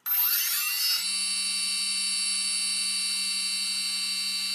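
Micro Gear CX20 quadcopter's brushless motor, driven through its ESC by the throttle, starting suddenly and spinning up over about a second to a steady high whine. This is the motor test run that follows its ESC calibration.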